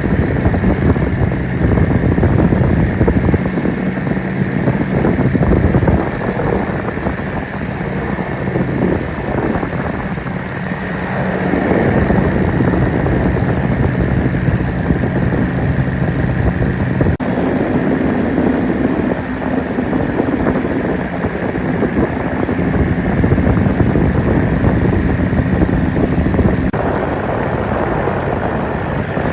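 Paramotor engine and propeller running steadily, with wind buffeting the microphone. The engine note shifts about two-thirds of the way through, as if the throttle changed.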